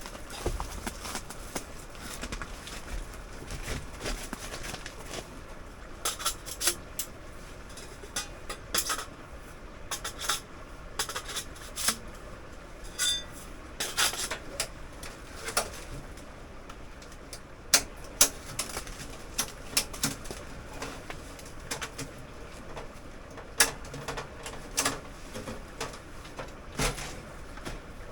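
Irregular metallic clinks and knocks, spread out over the stretch, as a small tent wood stove and its pipe are handled and fitted together during setup.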